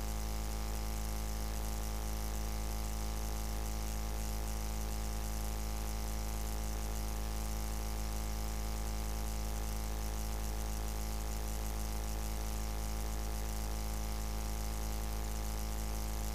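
A steady low electrical hum and buzz, unchanging throughout, with no other sound over it.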